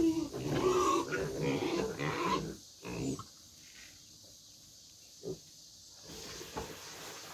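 Pigs grunting and squealing for the first two and a half seconds, then a few scattered knocks.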